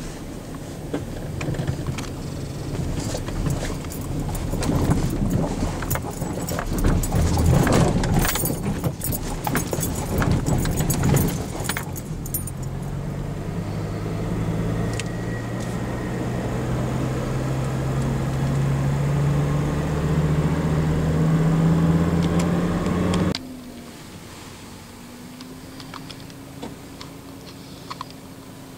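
Car driving, heard from inside the cabin. The first twelve seconds or so are full of dense rattling and clattering. The engine note then rises slowly as the car accelerates. After an abrupt cut about 23 seconds in, a quieter steady cabin hum with one level tone remains.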